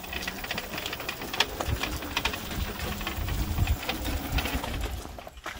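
Pedal go-kart converted to electric drive, with a car alternator running as its motor, driving along with a steady mechanical whir and rapid rattle.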